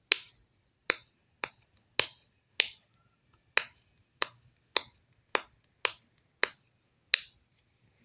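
Silicone push-pop (pop-it) fidget shaped like a carton of fries, its bubbles pressed one after another: about a dozen sharp pops, roughly two a second.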